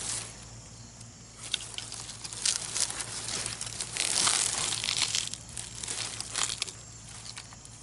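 Hands tearing and breaking open a shriveled zucchini vine, the stem and leaves crackling and crunching in irregular bursts, loudest a little past halfway.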